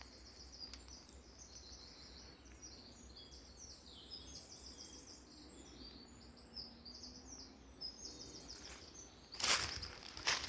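A songbird singing a long, fast run of high chirps. Near the end come two crunching footsteps on the forest floor.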